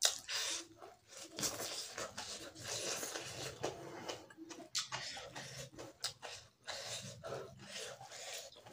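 Close-up eating sounds: wet chewing and lip smacking with many small mouth clicks, as a mouthful of rice and pork curry is eaten by hand, and fingers mix food on a wooden plate.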